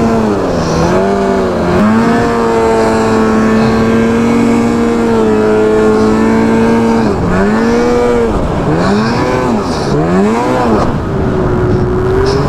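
Snowmobile engine under way, holding a steady high pitch for several seconds, then revving down and up several times in quick succession as the throttle is eased off and opened again.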